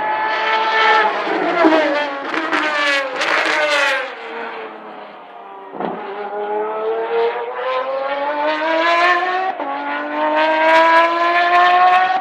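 Pagani Zonda Revolucion's AMG Mercedes V12 racing engine at high revs on a track. The note falls in pitch over the first few seconds and fades briefly. It then climbs steadily under acceleration, dropping once at a gear change about three-quarters of the way through before rising again.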